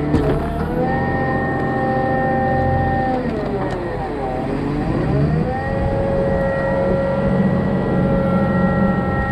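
John Deere 544K wheel loader's diesel engine running hard under hydraulic load while scooping and lifting a bucket of chicken litter. The engine's pitch drops about three seconds in and climbs back up about two seconds later, then holds high as the loaded bucket is raised.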